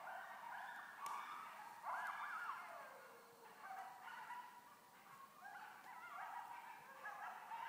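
A pack of coyotes howling together: several voices overlapping, their calls gliding up and down in pitch and breaking into wavering yips.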